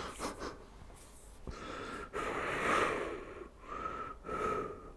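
A man's stifled laughter: breathy, wheezing huffs through the nose in a few spells, loudest about halfway through.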